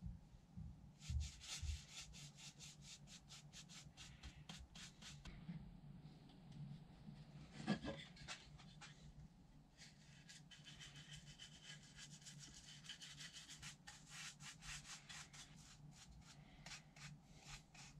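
Paintbrush brushing paint onto a wooden slat: quiet, quick, rhythmic strokes of bristles rubbing on wood, with pauses between runs. A single knock about eight seconds in.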